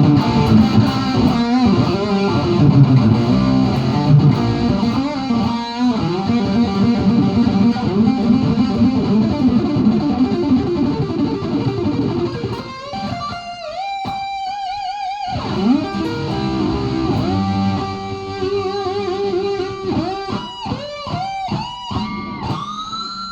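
Jackson JP Star electric guitar being played for a sound test. It opens with dense low chugging riffs, and from about halfway through switches to single-note lead lines with wide vibrato and bends. It ends on a note bent upward.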